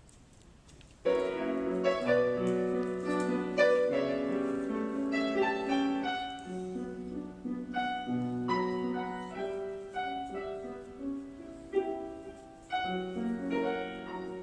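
Solo piano music in a classical style, entering about a second in after a brief hush.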